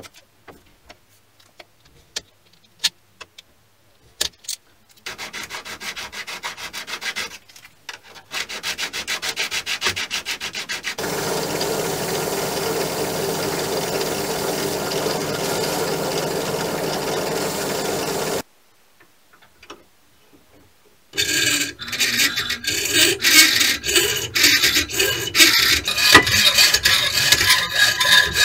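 Light handling clicks, then short rubbing strokes, then a wire brush wheel in a drill press running steadily for about seven seconds as the knife's steel tang is held against it to clean off old grime. After a short pause, a hacksaw cuts through brass rod clamped in a vise with quick, uneven strokes.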